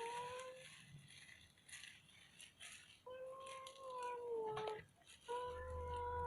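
A cat meowing in long, drawn-out, steady-pitched calls: one fading out just after the start, another about three seconds in, and a third a little after five seconds.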